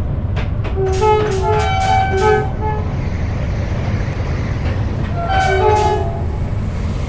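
Two-tone horn of a Dutch train sounding a run of short blasts alternating between a lower and a higher note about a second in, then another short burst of blasts near the end, over a steady low rumble.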